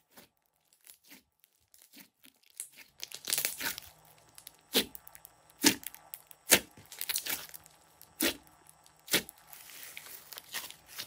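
Thick slime being squeezed and stretched by hand, with sharp sticky pops and clicks about once a second over a soft crackling. The first few seconds are quieter.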